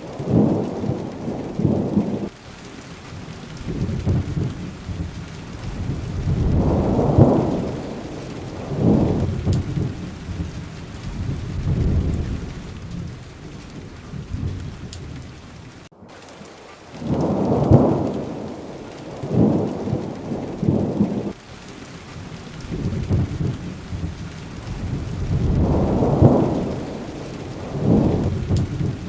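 Steady rain with thunder rumbling again and again, each low roll swelling and fading within a few seconds. The sound drops out for an instant about halfway through.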